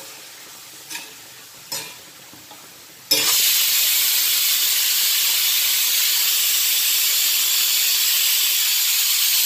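Pressure cooker letting off steam: a sudden loud, steady hiss starts about three seconds in, the sign that the cooker has come up to pressure. Before it, a spoon scrapes twice in a cast-iron pan of onions being sautéed.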